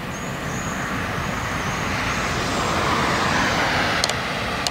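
Freight train of tank wagons hauled by a locomotive approaching: a steady rumble of engine and wheels on the rails that grows louder to about three seconds in. A faint, high wavering whine sounds in the first half, and a few sharp clicks come near the end.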